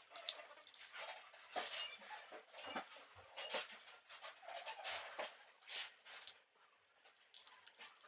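Hands handling a manual four-axis positioning stage: an Allen key scraping and clinking in its metal fittings and the handwheels being turned, giving irregular scrapes and rubs with small squeaks. It goes fainter about six seconds in.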